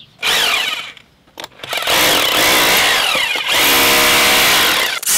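Electric rotary hammer in chisel mode hammering old plaster off a slate rubble-stone wall. It runs in three bursts: a short one, a pause of about a second, then two longer runs.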